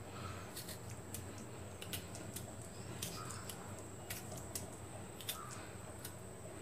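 Fork tines pricking a whole amla (Indian gooseberry) held in the hand, giving small irregular clicks as the fruit is turned and pierced again and again. A low steady hum runs underneath.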